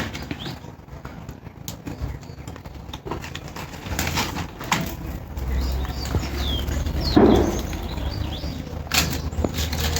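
Birds chirping now and then in short calls, amid scattered clicks and knocks, with a louder noisy burst about seven seconds in.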